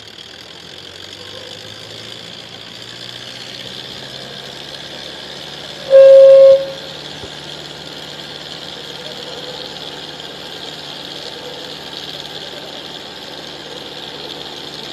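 Diesel engines of an Indo Farm and a Sonalika DI 55 tractor working hard against each other in a tractor tug-of-war, the engine note rising over the first few seconds and then holding steady. About six seconds in, a loud horn blast sounds for about half a second.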